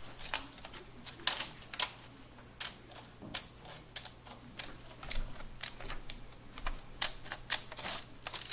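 Irregular series of sharp clicks and taps, several a second, with some louder than the rest.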